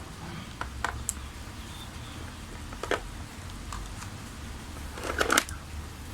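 Small clicks and light knocks of parts and tools being handled on a workbench: a few single clicks, then a short burst of rattling clicks about five seconds in, over a low steady hum.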